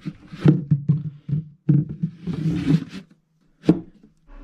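Background acoustic guitar music: a run of plucked notes and strums with a short pause and one last strum near the end.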